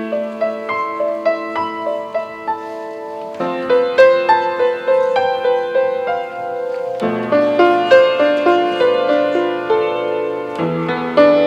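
Instrumental introduction to a song: a keyboard plays a slow melody over chords. The accompaniment grows fuller partway through, with lower bass notes coming in about seven seconds in.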